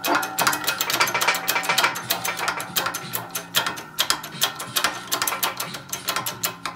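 Rapid, irregular metallic clicking and tapping of engine parts being handled and knocked as an ATV crankcase is worked apart.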